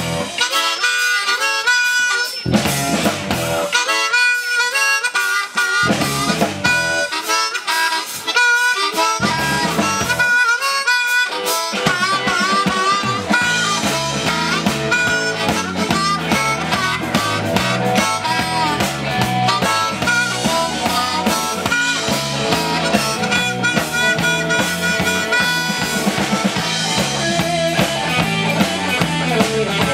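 Amplified harmonica solo, played into a vocal microphone, over a live blues-rock band. For the first twelve seconds the band drops out several times, leaving the harmonica wailing alone in the gaps; after that, drums, bass and electric guitar play steadily under it.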